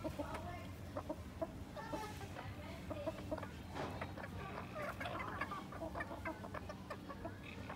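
A flock of chickens clucking, with many short calls coming one after another.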